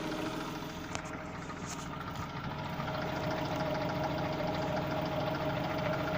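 Engine idling cold with a steady, fast knock, which the owner suspects comes from a worn piston pin.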